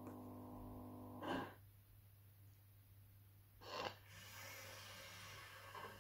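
The sound decoder of an Accurascale Class 92 OO gauge model locomotive plays its stationary sound effects through the model's small speaker. A steady humming tone stops about a second in, followed by two short bursts of air-like hiss and then a longer, softer hiss near the end.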